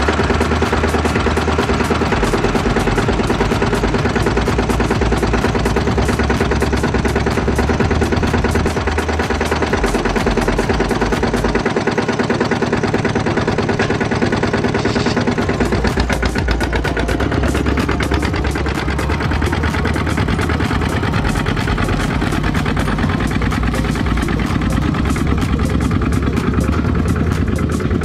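Single-cylinder Kubota ZT120 diesel engines of two-wheel walking tractors running, several at once, with a rapid, even knocking beat.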